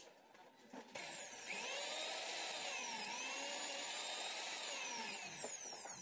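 Prestige mixer grinder's motor switched on about a second in, spinning up to a steady high whine, running unloaded with no jar fitted. Its pitch dips briefly in the middle, and near the end it is switched off and winds down with a falling whine.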